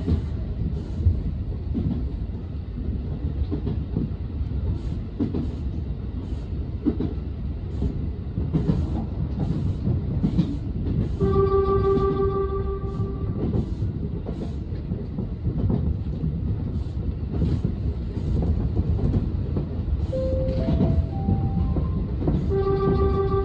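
Tobu Skytree Line commuter train running over the rails, heard from behind the driver, with a steady rumble and regular clack of the wheels over rail joints. The train's horn sounds one held blast of about two seconds midway, and another starts near the end, sounded as a warning in the falling snow.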